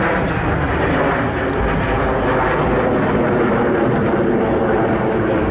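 Jet noise from Blue Angels F/A-18 Hornets flying overhead: a loud, steady roar of their twin turbofan engines that holds without a break.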